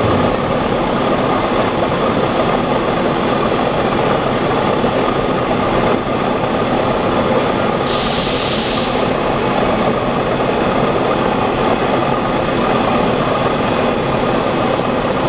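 Ice candy machine running steadily, its motors giving an even mechanical hum while the brine in its tank is churned. A brief hiss about eight seconds in.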